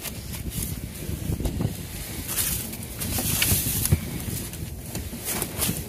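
Rummaging through a bin of discarded produce with gloved hands: rustling of plastic bags and foam fruit sleeves, with irregular soft knocks and clicks as fruit is moved about.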